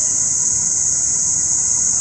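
A steady, high-pitched chorus of night insects, unbroken throughout, over a faint low rumble.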